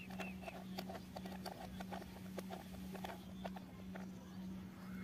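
Toy plastic screwdriver turning a plastic screw in a take-apart toy train, making small irregular plastic clicks and taps. A steady low hum runs underneath.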